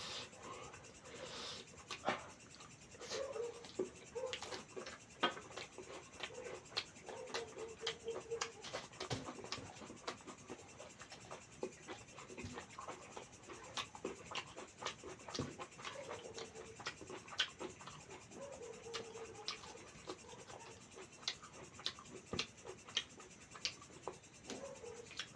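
Close-up eating sounds of mutton curry and rice: chewing with irregular wet mouth clicks and smacks, several a second.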